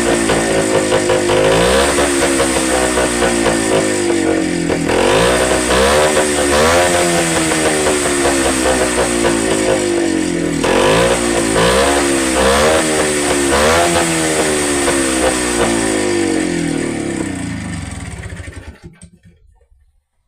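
Motorcycle engine running and revved repeatedly, its pitch rising and falling in a series of blips, then switched off and dying away near the end. It runs without the scratching the owner was chasing; he judges it no longer scratches, overheats or smokes.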